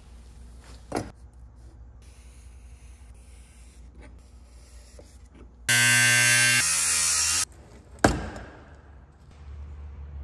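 Cordless angle grinder with a cut-off wheel cutting into the rusted sheet metal of a 1972 Toyota Corolla's undercarriage in one short burst, about two seconds long, a little past halfway through; its pitch drops partway through the cut and it stops abruptly. About a second later there is a single sharp knock that rings briefly.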